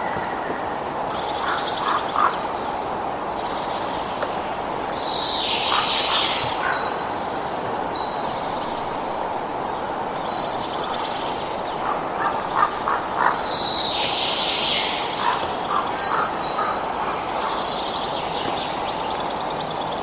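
Wild birds calling and singing: repeated high chirps and two longer falling trills, with clusters of short lower calls in between, over a steady rushing hiss.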